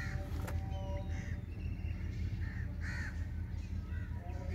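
Crows cawing, several short caws roughly a second apart, over a steady low rumble, with one sharp click about half a second in.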